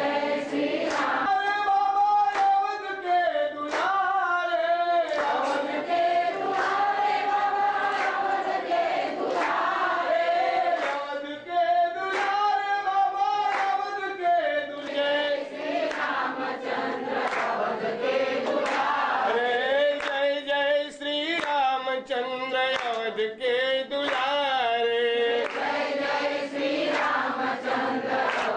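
A group of devotees singing a devotional song together, with frequent sharp strikes keeping time.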